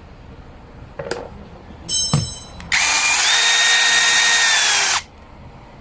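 Cordless drill running: a short blip on the trigger, then the motor runs for about two seconds, its whine rising as it spins up and holding steady before it cuts off suddenly.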